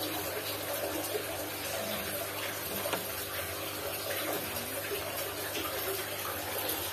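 Steady sound of running water, with a low hum underneath.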